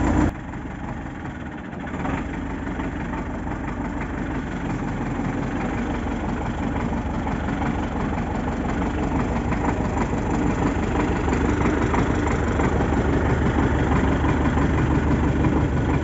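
Belarus MTZ-82 tractor's diesel engine idling steadily, a low, even running sound.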